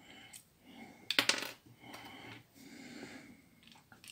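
Small plastic parts clicking and rattling as a connector is pressed into an old Nokia phone's plastic housing: a quick cluster of sharp clicks about a second in, with a few lighter taps before and near the end.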